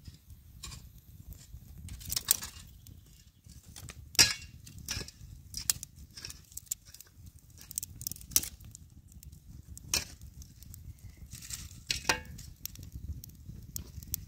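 Irregular sharp knocks and clinks of hard objects, about six of them a second or more apart, over a low steady rumble.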